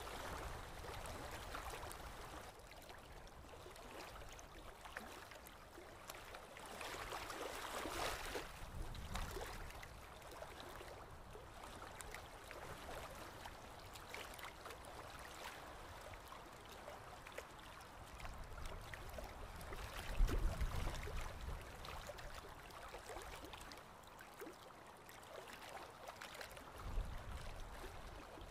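Bristle brush dabbing and scrubbing acrylic paint on canvas: a faint, scratchy rustle that swells and fades with the strokes. A dull low bump comes about twenty seconds in, and another near the end.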